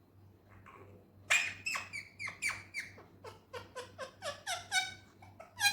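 Indian ringneck parrot calling: a fast series of short, shrill calls beginning about a second in, each falling in pitch, around three a second.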